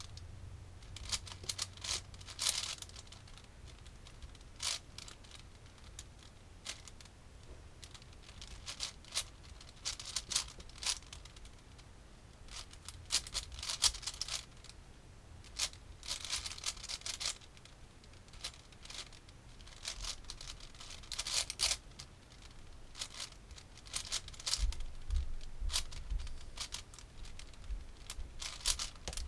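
Plastic Rubik's-type puzzle cube being turned quickly by hand: bursts of clicking and scraping as the layers are rotated, in irregular clusters with brief pauses between turn sequences.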